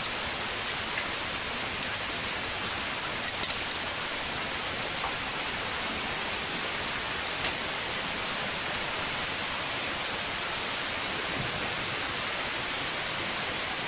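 Steady even hiss like falling water, with a few sharp metallic clinks from a caver's rope gear: a quick cluster about three and a half seconds in and one more about seven and a half seconds in.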